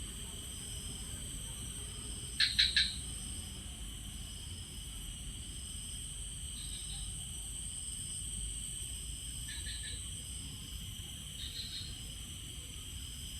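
Steady chorus of insects such as crickets, a continuous high buzzing and trilling. Short bursts of quick, sharp chirps cut through it, the loudest a fast run of three about two and a half seconds in, with fainter ones later.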